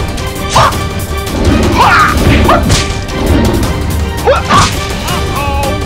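A run of sharp hit and crash sound effects, several a second, over background music with a steady bass.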